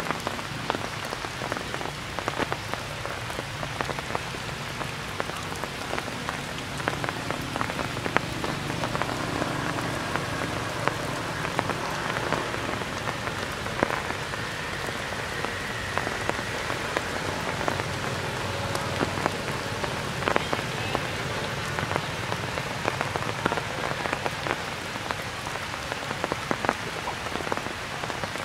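Steady rain falling, with many separate sharp drop hits scattered through it.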